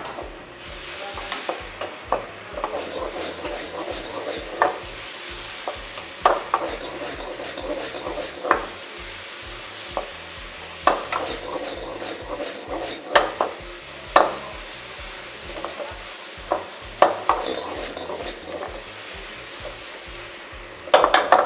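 Wok ladle stirring and tossing fried battered chicken strips through a hot chilli sauce in a wok: a steady sizzle broken by sharp clanks of the ladle against the wok every second or two, with a quick run of clanks near the end.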